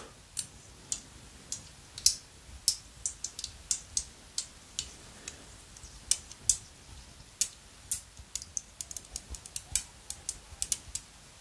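Small polished tumbled crystal stones clicked and tapped together between the fingertips: sharp, irregular clicks that come faster near the end.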